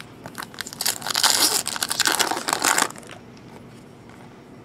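A foil trading-card pack wrapper is crinkled and torn open, giving a dense crackling that runs for about two seconds and then stops.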